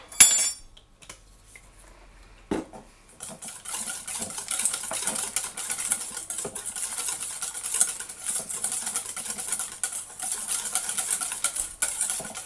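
Wire whisk beating cookie batter (butter, sugar, eggs and vanilla) in a stainless steel bowl: a fast, steady scrape and click of the wires against the metal from about three seconds in until just before the end. It is preceded by a ringing metallic clink at the very start and a knock a couple of seconds in.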